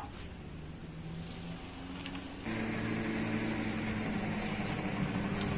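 Small underbone motorcycle engine idling steadily, much louder from about halfway through.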